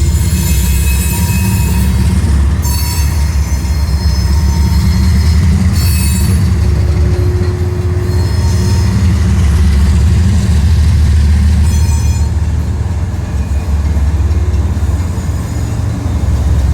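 Coal train cars rolling past with a heavy, steady rumble. High-pitched wheel squeal comes and goes several times.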